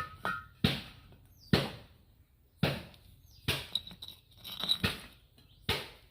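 A series of sharp knocks or clacks, about one a second at irregular spacing, each dying away quickly, with near silence between them.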